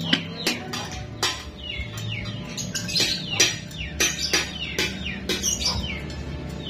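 Small birds chirping repeatedly in short, quick falling chirps, over background music.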